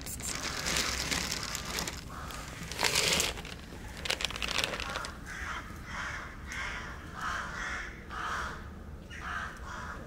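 Dry cat kibble rattling out of a plastic jug onto concrete for the first three seconds or so. After that comes a run of about eight short, harsh calls, roughly one and a half a second.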